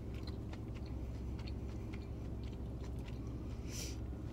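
Close-miked chewing of fried, breaded fast food with the mouth closed: a run of small wet clicks and smacks, with one short crisp crunch about four seconds in. A steady low hum runs underneath.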